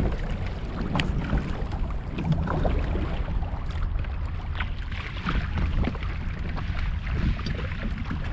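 Low steady rumble of water and air around a fishing kayak, with scattered light knocks and clicks, a sharp one about a second in.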